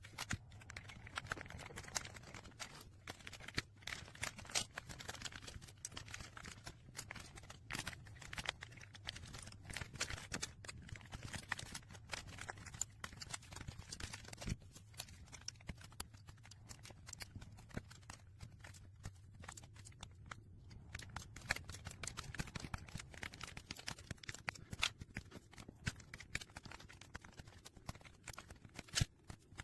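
Typing on a mechanical keyboard fitted with Akko V3 Penguin tactile silent switches: a fast, irregular run of soft, muffled key clicks, several a second, over a faint low hum.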